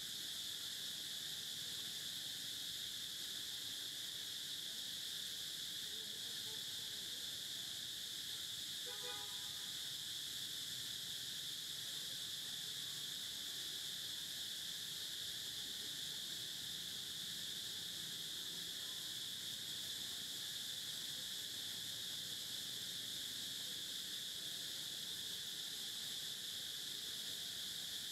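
Steady high-pitched drone of an insect chorus, unchanging throughout, with a brief faint pitched call about nine seconds in.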